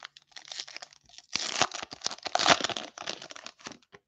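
Foil wrapper of a trading-card pack crinkling as it is torn open by hand, loudest in the middle.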